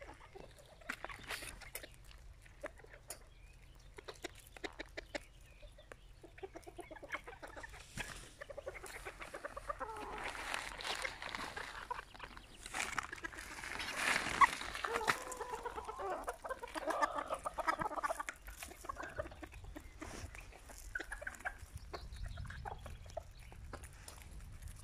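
A flock of Serama bantam chickens clucking while they feed, with many short clicks of pecking at gravel. The clucking grows busier and louder about halfway through, then eases off again.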